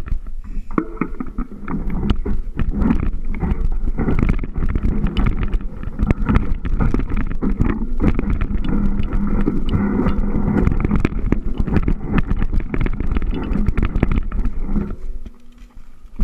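Wind rumbling and buffeting on the microphone, with many small crackles and knocks. It drops away shortly before the end.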